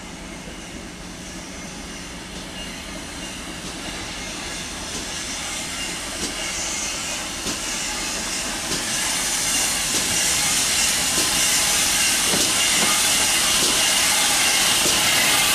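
GWR Manor class 4-6-0 steam locomotive No. 7802 'Bradley Manor' running in alongside, its steam hiss growing steadily louder as it nears. A few short knocks and clanks come in the last few seconds.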